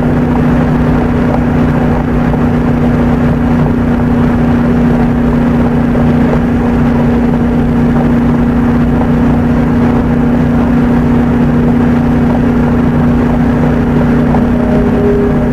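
Steady drone of a car's engine and tyres at highway speed, heard from inside the cabin, with a constant low hum. The audio is played at double speed, which raises its pitch.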